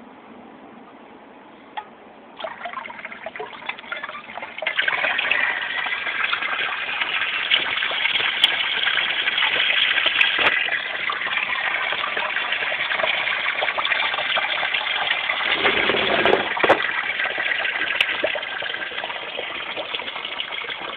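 A stream of water pouring into a fish pond and splashing on the surface: a steady gush that comes up in two steps between about two and five seconds in and then holds. A few faint clicks are heard over it.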